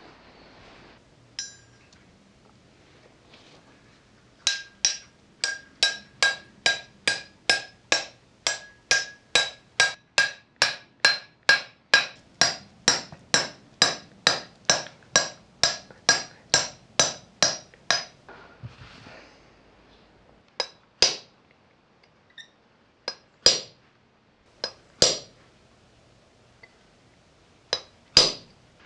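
Hammer blows driving a bearing into a Series 1 Land Rover front swivel ball housing. A steady run of sharp metallic taps, about two and a half a second, each ringing briefly, goes on for some thirteen seconds, then stops. Half a dozen single taps follow as the bearing seats.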